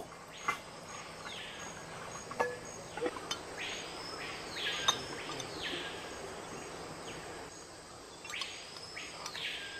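Tropical forest ambience: a bird's call rising and falling in pitch, repeated in pairs, over a faint steady high insect trill. A few light metallic clinks, loudest about five seconds in, fit a spoon knocking on the metal cooking pots.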